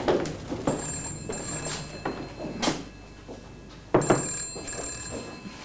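An electric bell rings twice, each ring lasting about a second and a half with a pause of about two seconds between, along with a few short knocks.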